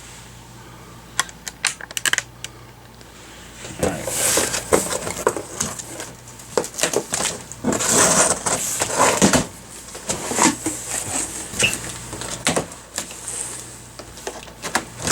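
Packaging being handled during unboxing: a few scattered clicks, then from about four seconds in irregular rustling and clicking as parts are handled and unpacked, over a steady low hum.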